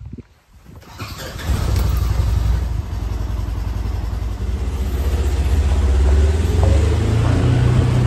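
Polaris Ranger 1000 side-by-side's single-overhead-cam engine starting about a second in, then running steadily, with its pitch rising gradually in the second half as it pulls away.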